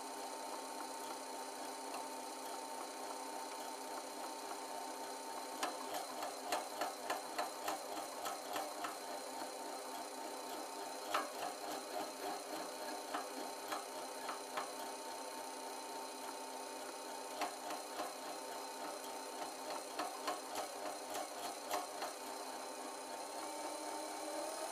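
Lathe and toolpost-mounted grinder running with a steady whine while the grinder is fed against a spinning copper pipe, giving a pulsing scrape about twice a second. The scraping comes in two spells, from about a quarter of the way in and again past the middle, each lasting several seconds.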